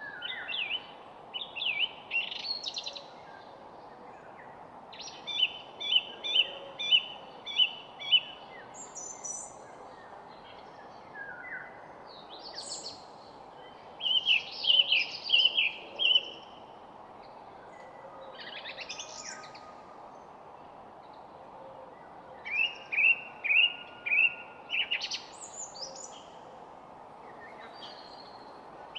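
Songbirds singing in short phrases of quick repeated chirped notes, a few seconds apart, over a steady soft background hiss.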